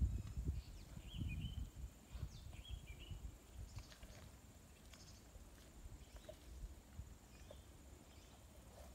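Quiet hillside ambience. A low wind rumble on the microphone comes in the first few seconds, with a few short bird chirps about a second and again two and a half seconds in.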